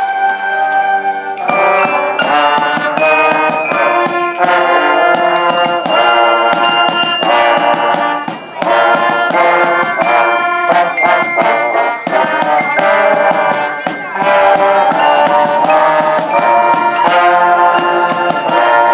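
An orchestra playing a piece of music, many instruments sounding held and moving notes together, with a brief drop in loudness about eight seconds in.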